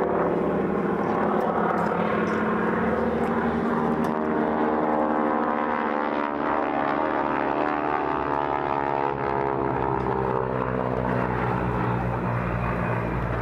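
Two North American T-6 Harvard trainers flying overhead, their Pratt & Whitney Wasp radial engines and propellers making a steady drone whose pitch slowly drifts as they pass.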